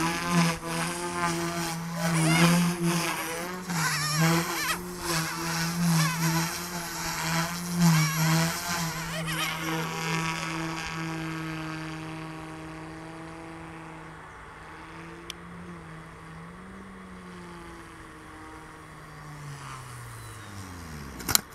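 OMPHobby M2 EVO micro RC helicopter's electric motor and rotors whining in flight, loud and swelling and wavering in pitch for the first nine seconds or so, then steadier and fainter. Near the end the pitch falls steadily as the rotor spools down after landing.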